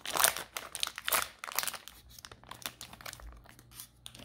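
Wrapper of a Topps Series 1 baseball card value pack crinkling and tearing as it is opened by hand. The loudest crinkles come in the first second or so, then lighter ones.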